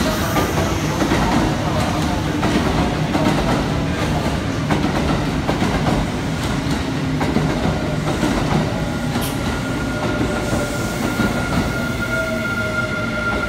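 Electric commuter trains moving through a station: a Kintetsu train's wheels clack and knock over the rail joints and points. From about ten seconds in, a steady high whine and a lower falling tone join as a second train pulls in.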